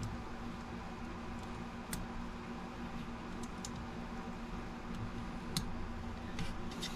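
A few light clicks of tweezers and fingers handling a small plastic scale model, over a steady background hum.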